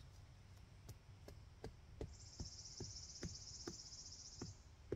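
A mallet hammering a tent stake into the ground for a guy line: faint, regular knocks, about two and a half a second, starting about a second in.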